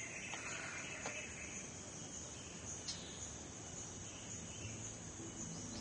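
Steady high-pitched drone of insects, with a couple of faint clicks. Music begins to come in near the end.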